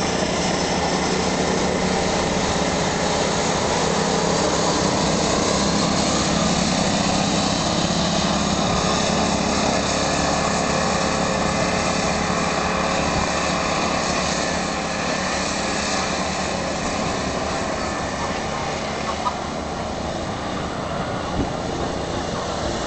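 Small petrol go-kart engines running as several karts race around the track, a steady buzzing drone that grows slightly fainter near the end as the karts move farther away.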